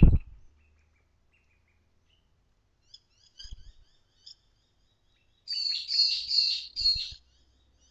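Several small birds of mixed species chirping, giving warning calls at a cat: faint twittering, then a louder run of four or five chirps in the second half. A brief low thump right at the start.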